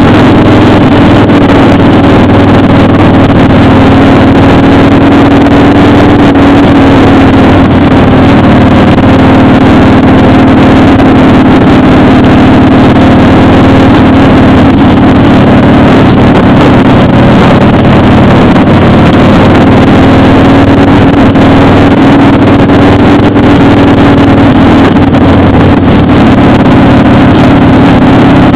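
Motorcycle engine running steadily at cruising speed, with wind rushing past. The engine hum holds one pitch with no revving or gear changes.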